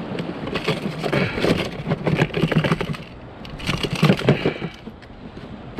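Two bursts of crackling, rustling noise from handling the freshly caught red snapper while unhooking it with pliers: the first starts about half a second in and lasts over two seconds, the second comes about three and a half seconds in. Steady wind and surf noise lies underneath.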